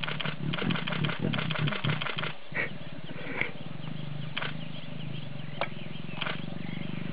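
Lions growling: a run of harsh, rapidly pulsing growls for the first two seconds or so, then a steady low rumble.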